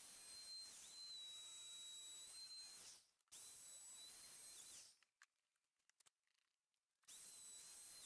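Handheld router with a flush-trim bit trimming Formica laminate flush at the panel edge: a faint, steady high-pitched motor whine. It cuts out briefly about three seconds in, winds down to silence with a falling pitch about five seconds in, then spins back up with a rising whine near the end.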